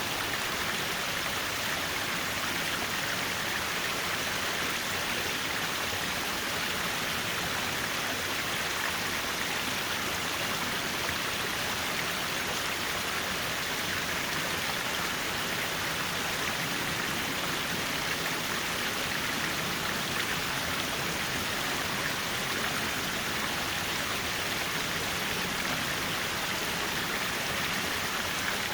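Mountain stream water running steadily over rocks: an even, continuous rushing.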